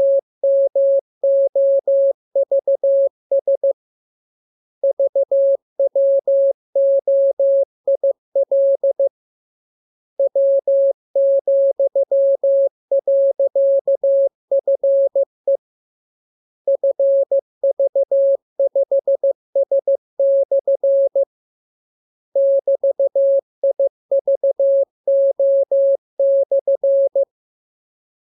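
Morse code practice tones: one steady mid-pitched beep keyed on and off in dots and dashes. It is sent in blocks of characters with a pause of about a second between blocks, as in a training radiogram.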